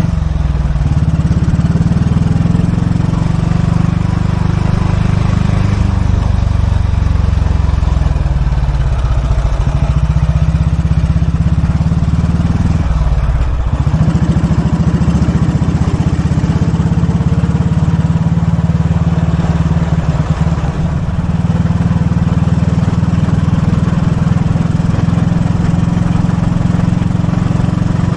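A 1943 Royal Enfield WD/CO's 350cc overhead-valve single-cylinder engine running under way. Its note rises and falls with throttle and gear changes, dips briefly about halfway through, then runs steadier.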